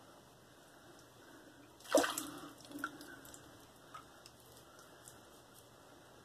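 A brief splash of water about two seconds in, as a safety razor is rinsed, followed by a few faint scrapes of the double-edge razor on lathered skin.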